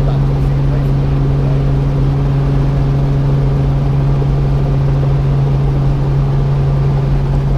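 Robinson R44 helicopter's six-cylinder Lycoming piston engine and rotors running steadily, heard from inside the cabin as a loud, even hum while the helicopter hover-taxis near the ground.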